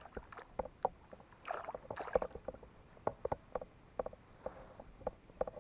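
Irregular light knocks and clicks of gear and hands against a plastic fishing kayak, with a short swish about a second and a half in.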